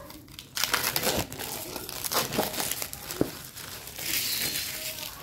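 Thin plastic packaging crinkling and rustling as it is crumpled and pulled away by hand, a dense irregular crackle with a louder burst near the end.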